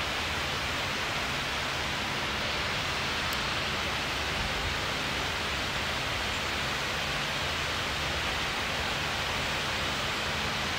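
Steady rushing noise of wall-mounted electric fans running, with a faint low hum underneath.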